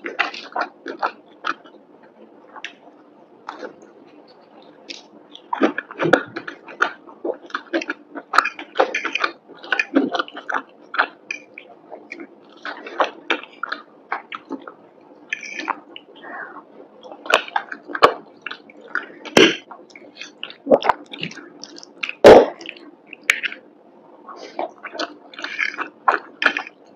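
Close-miked eating: chewing of fried chicken and creamy penne pasta, with irregular wet mouth sounds and sharp clicks, the loudest about three-quarters of the way through.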